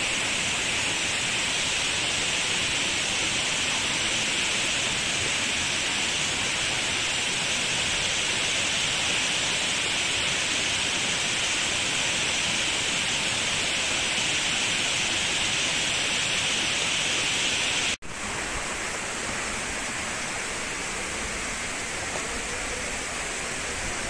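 Steady rush of a waterfall spilling over an old stepped stone dam. It breaks off abruptly about three-quarters of the way through, then continues a little quieter and lower.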